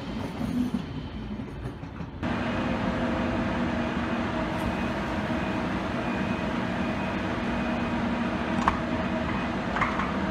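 A class 425 S-Bahn train's rolling noise for about the first two seconds. Then an ICE high-speed train's steady electric hum at the platform, with several held tones and two short clicks near the end.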